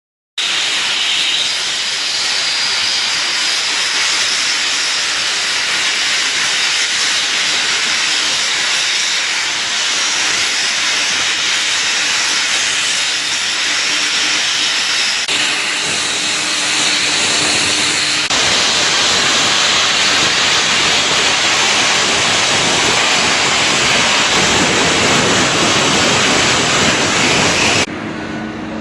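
Loud steady hiss of a CNC cutting machine's torch as it cuts, changing tone twice midway and cutting off abruptly near the end.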